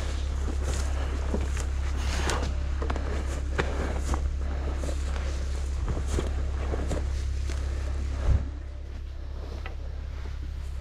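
Footsteps and rustling through long grass, with scattered light knocks, over a steady low hum. A louder thump comes about eight seconds in, and the rustling is quieter after it.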